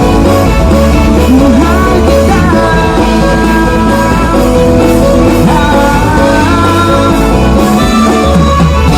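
Loud music with a singing voice carrying a gliding melody over steady held notes and a strong bass.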